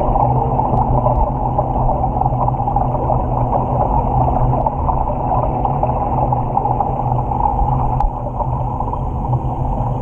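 Steady, muffled underwater rumble with a faint hum, heard through a GoPro's waterproof housing held in a touch tank's water. A single light tap about eight seconds in.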